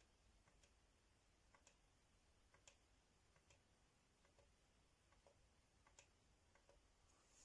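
Near silence with faint clicks about once a second.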